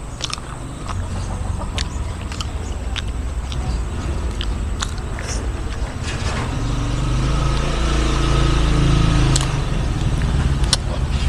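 A low engine rumble swells over several seconds, peaks about two-thirds of the way in, then eases. Scattered small sharp clicks sound over it.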